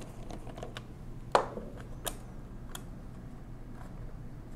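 Light clicks and taps of a screwdriver working a small steel screw out of the top rail of a 1920s Monroe mechanical calculator. One sharper click with a short ring comes about a second and a half in, and a few fainter ones follow.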